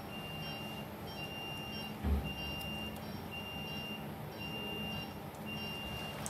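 Operating-room patient monitor beeping: one high electronic beep about once a second, each about half a second long, over a low steady hum. There is a single dull thump about two seconds in.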